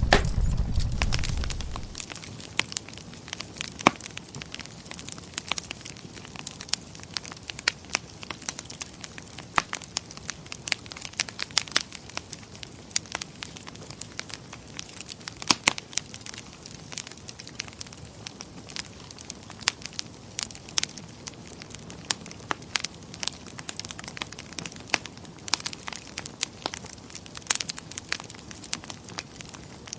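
Wood fire burning in a fireplace, crackling with frequent irregular sharp pops over a soft steady hiss. A low rumble fades out in the first two seconds.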